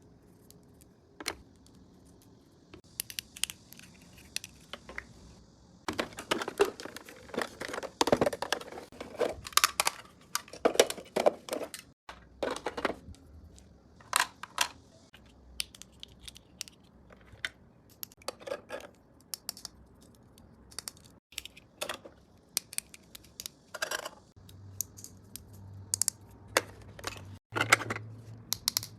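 Packaging being handled and opened for an unboxing: an irregular run of sharp clicks, taps and crinkles, with a soft tearing hiss a few seconds in.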